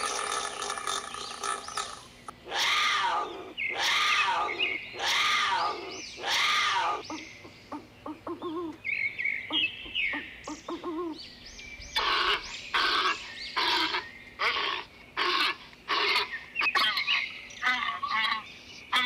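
A string of different animal calls. It opens with a pitched call, then four rising-and-falling calls about a second apart, a harsh rasping call in the middle, and a quick run of short repeated calls near the end.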